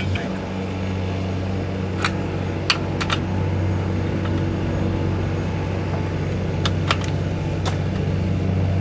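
A small engine running steadily at a low, even pitch. Over it come a few scattered sharp metal clicks as a wrench works the bolts of a pipe flange adaptor.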